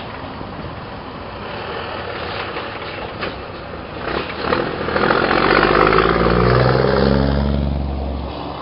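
Scania R 420 truck's inline-six diesel pulling a refrigerated trailer drives up and passes close by. The engine grows louder, is loudest about five to seven seconds in, then fades with its pitch dropping as it moves away.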